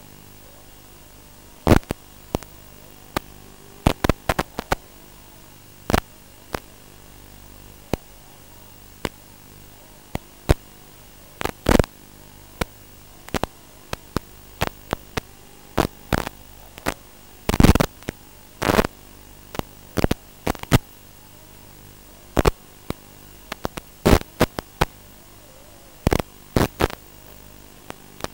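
Radio static from an analog FPV video receiver's audio channel: a steady low hum and hiss broken by irregular sharp crackles and pops, sometimes in quick clusters, loudest around two thirds of the way through.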